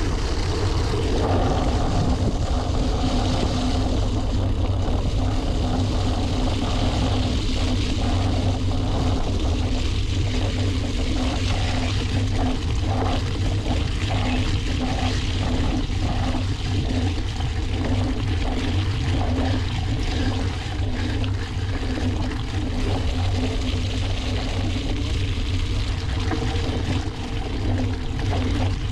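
Mountain bike on Maxxis XC race tyres riding through wet, muddy trail: a steady low rumble of wind and trail noise with the wet hiss and spatter of tyres through mud. Through the middle comes a regular pulsing, roughly once a second.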